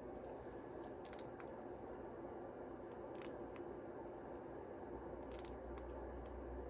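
A handful of faint clicks and crinkles from handling Yu-Gi-Oh! booster packs and cards, over a steady low hum.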